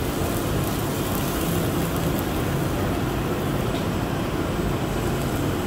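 Thin slices of beef sizzling on the hot grate of a tabletop yakiniku grill, a steady hiss over a steady low rumble.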